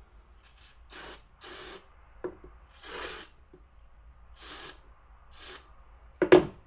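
Aerosol cleaner sprayed in about six short hissing bursts, washing fouling off rifle-cleaning gear. Near the end come a few sharp knocks, the loudest sounds here.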